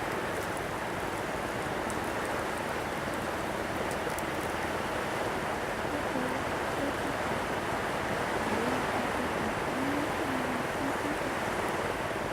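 Steady wash of sea surf on the shore, even and unbroken, with a few faint crackles in the first few seconds.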